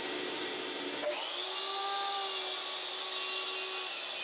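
Miter saw running, its blade cutting through a softwood 2x10 board with a steady sound; several steady ringing tones come in about a second in.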